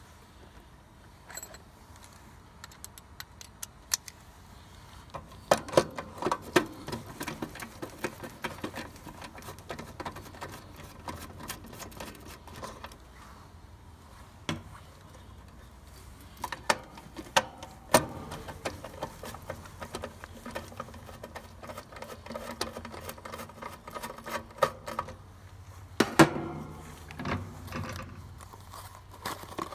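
Irregular clicks, taps and light rattles of hand tools and small metal parts being handled while a heat pump condenser's burnt contactor is replaced. There are a few sharper clicks, the loudest near the end.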